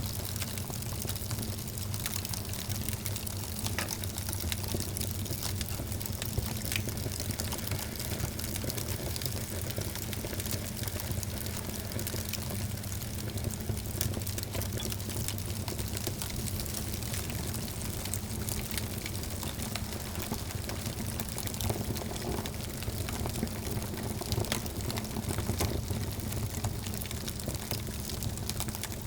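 Wood fire burning in a fireplace: a steady hiss and low rumble of the flames with frequent small crackles and pops.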